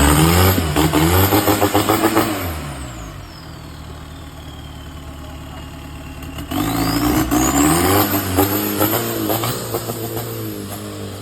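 Off-road 4x4 engine revving hard in two bursts, the first right at the start and the second a little past halfway, each with a high whine that climbs and falls with the revs. Between the bursts the engine runs quieter.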